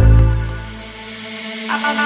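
Electronic background music: a deep bass hit fades away over the first second and a half, then a held synth note comes in near the end.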